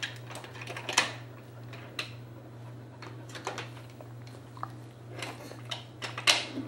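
Wooden toy train pieces clicking and knocking as a toddler handles them: scattered light clicks, the sharpest about a second in and again near the end, over a steady low hum.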